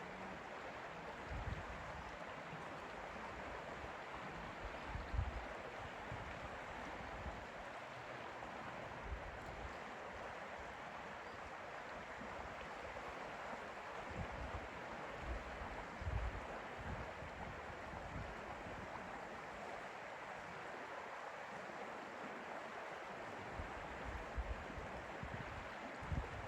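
Lake water lapping and moving in a steady, even wash, with occasional low wind gusts buffeting the microphone, the strongest about five and sixteen seconds in.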